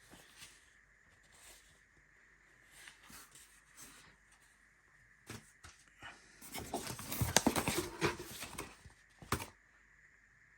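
Cardboard and plastic packaging being handled: scattered rustles and taps, then a louder stretch of rustling and scraping about six and a half seconds in, ending with a sharp click.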